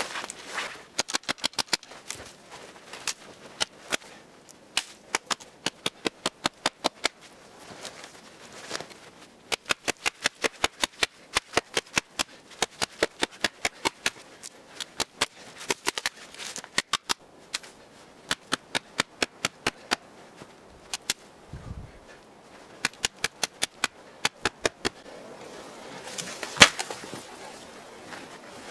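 Machete-kukri hybrid knife chopping dry deadwood for firewood: sharp, crisp blows in quick runs of about three a second, separated by short pauses, with one louder blow near the end.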